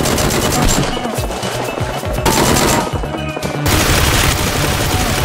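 Several long bursts of rapid automatic gunfire sound effects, with background music underneath.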